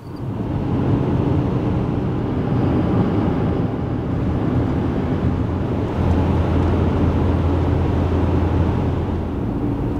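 Road noise inside a moving Toyota RAV4 at highway speed: a steady rush of tyre and wind noise with a low hum, and the hum grows stronger about six seconds in.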